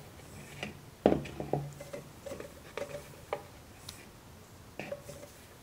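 A small pan knocking and scraping against a plastic funnel as powdered smoke compound is poured and shaken through it into a projectile: a string of light, irregular taps and knocks, the loudest about a second in.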